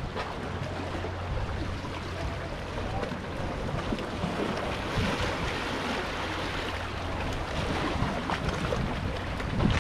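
Small waves washing against shoreline rocks, with wind noise on the microphone; the wash swells a little louder about halfway through and again near the end.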